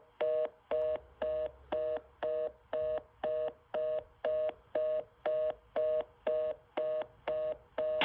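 Telephone line fast busy (reorder) tone: a two-note beep repeating about twice a second, each beep about a quarter second long, the signal that a call cannot be completed.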